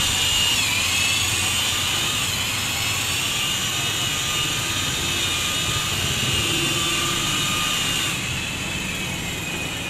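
Corded machine polisher with a foam pad running against a car's painted door panel during paint correction, its electric motor whining steadily. The pitch dips briefly about a second in, and the sound gets a little quieter near the end.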